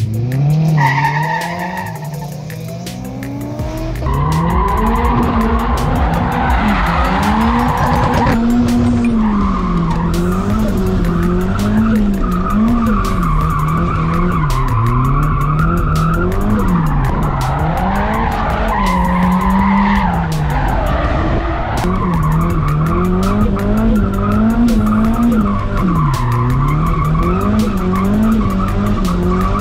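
Nissan 180SX drift car's engine heard from inside the cabin, revving up and down again and again as the car slides, with tyres squealing on wet tarmac. The sound drops for a moment about two seconds in, then comes back loud.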